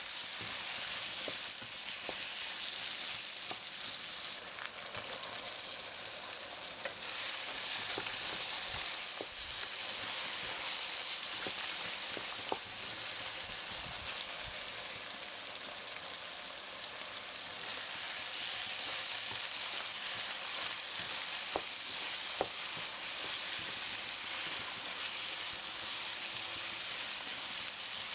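Food sizzling steadily in a hot pan, with a few scattered light clicks.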